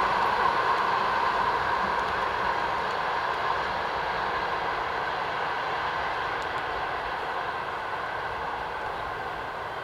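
Passenger coaches' wheels rolling on the rails as the tail end of a loco-hauled passenger train passes and draws away. It is a steady rushing rumble that fades gradually.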